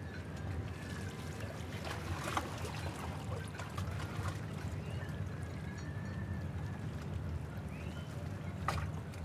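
Water splashing and trickling over a steady low rumble, with a few sharper splashes about two seconds in and near the end.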